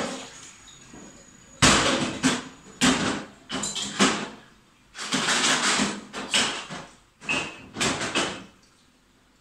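A run of about nine loud, irregular knocks, rattles and scrapes close by, which stop about eight and a half seconds in.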